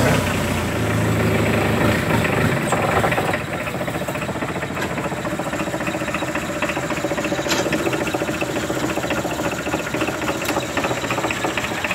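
Small boat's engine running with a fast, even knock, louder for the first three seconds or so, then easing to a lower, steady run as the boat moves slowly along the canal.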